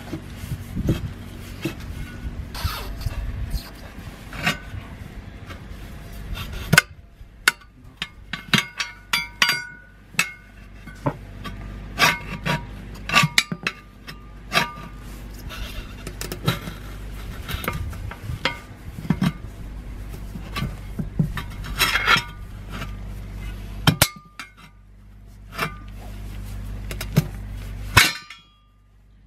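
Steel wheel rim and tire lever clanking and ringing as the rim is worked out of a stiff, age-hardened tire by hand: irregular sharp metal knocks, several with a short ring, the loudest about seven seconds in, about twenty-two seconds in and near the end.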